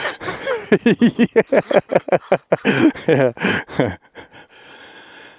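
Men laughing in quick, rapid bursts, dying away to a faint hiss for the last second or so.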